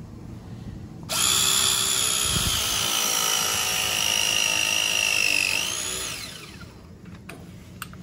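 Milwaukee M12 Force Logic battery press tool running a press cycle on a copper press fitting: a motor whine that starts about a second in, sinks slightly in pitch as it works, rises briefly and winds down about five seconds later. A few light clicks follow near the end.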